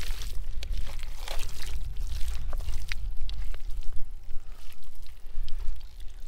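Hands digging and scooping through thick wet mud: irregular wet squelches and slaps, over a steady low rumble.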